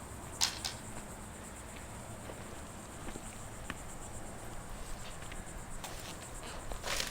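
Steady high-pitched insect buzzing, with a few sharp clicks or knocks, the loudest about half a second in and near the end.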